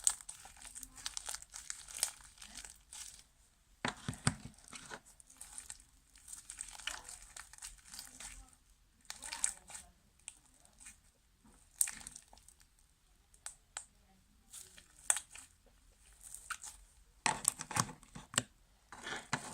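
Fluffy slime, made with a lot of foam, being stretched and squished by hand: irregular sticky crackling and tearing sounds with short pauses, coming thicker near the end.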